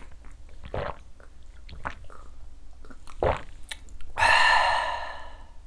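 Mouth sounds of downing a shot of soju: a few soft gulps and swallows, then about four seconds in a long breathy exhale of about a second, the satisfied 'kyaa' after the drink.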